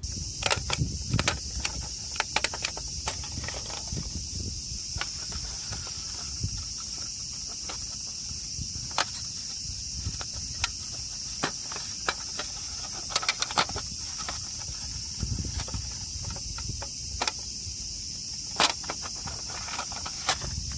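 Insects trilling steadily and high, overlaid with scattered sharp clicks and knocks, several in quick clusters.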